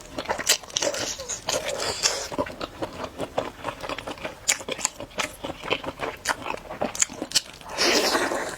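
Close-up biting and chewing of food: many small crisp crunches and wet chewing clicks, with a louder crunchy stretch near the end.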